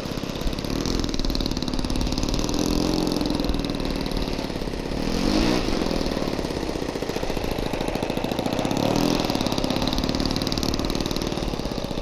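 O.S. 52 four-stroke glow engine of a radio-control model plane running as it taxis, its pitch rising and falling with the throttle, with one rev up and back down about five seconds in. The engine is running a little rich, as the owner judges it.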